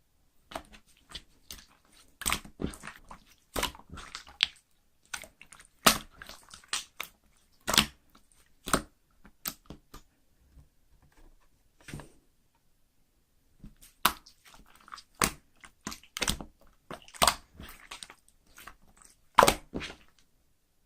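Clear slime being worked by hand, giving irregular sharp clicks and pops, with a sparser stretch about halfway through.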